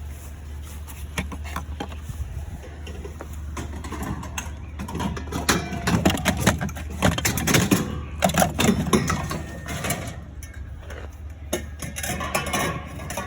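A vehicle engine idling with a steady low hum, while scrap metal clanks and rattles in a run of knocks from about four to ten seconds in.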